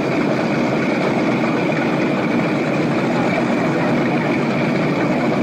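Cigarette 38 offshore powerboat's engines idling with a steady, unbroken rumble.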